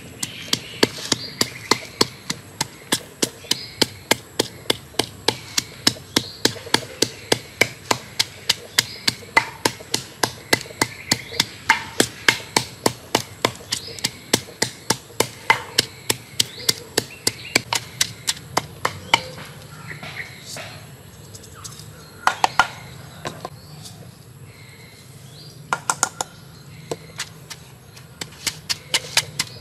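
Wooden pestle pounding red chillies and garlic in a wooden mortar: a steady run of dull knocks, about three a second. The pounding thins out about two-thirds of the way in, stops for a few seconds, then starts again near the end.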